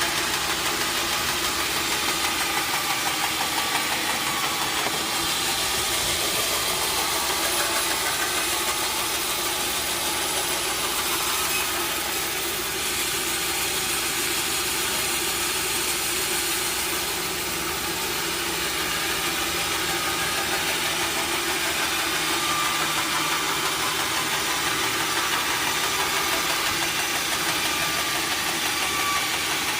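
Sawmill machinery running steadily.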